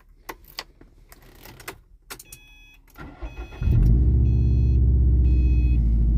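2011 Subaru STI's turbocharged flat-four being started with a retrofitted key: a few clicks of the key in the ignition, then a brief crank, and the engine catches about three and a half seconds in and runs steadily at a fast idle. A faint high chime repeats over the engine. The start shows that the immobiliser is reading the transplanted key chip.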